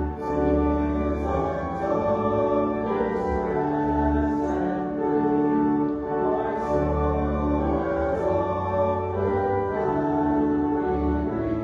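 Closing hymn in church: organ music with long held bass notes under a congregation singing.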